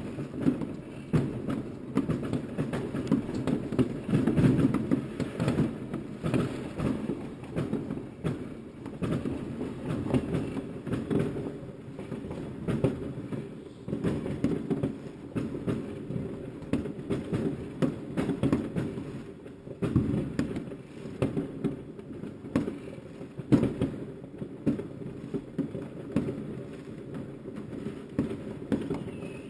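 Many fireworks going off at once: a continuous, dense crackle and rumble of overlapping bangs, with louder single bangs about four seconds in and again later.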